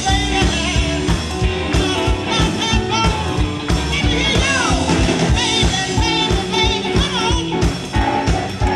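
Live blues band playing: a woman sings over electric guitars, bass guitar and drums keeping a steady beat.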